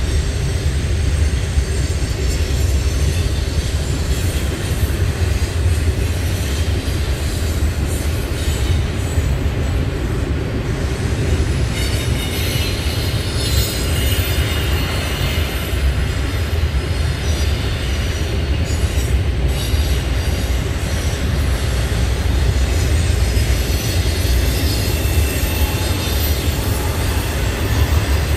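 Double-stack intermodal freight cars rolling by: a steady, heavy low rumble of steel wheels on rail. A higher-pitched wheel squeal joins in about halfway through.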